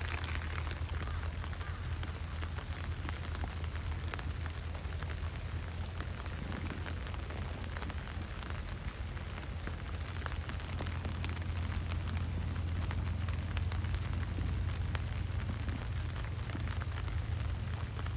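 Heavy rain falling steadily on leaves and ground, with countless single drops pattering, over a steady low rumble.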